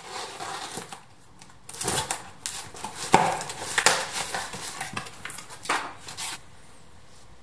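A blade slitting packing tape and a cardboard box being pulled open: scraping, tearing and rustling of cardboard with a few sharp clicks, stopping abruptly about six seconds in.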